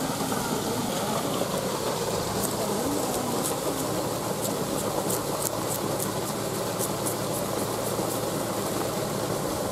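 Knife scraping and cutting the rind off a ripe pineapple: a run of short, crisp scrapes, a few a second, from about two seconds in until near the end. Under it runs a steady rushing background noise with a low hum.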